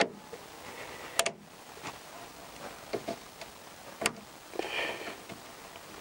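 Hose clip pliers working the spring-band hose clips on the coolant header tank pipes: a few sharp metallic clicks, the loudest about a second in and again about four seconds in, with a brief scrape just after the second.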